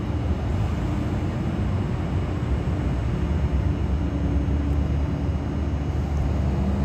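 Steady low rumble of urban background noise, with a faint hum that comes and goes.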